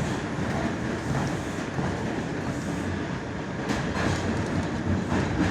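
R142 subway car running along the track, heard from inside the car: a steady rumble and hiss of wheels on rail, with a few faint clicks of the wheels over rail joints.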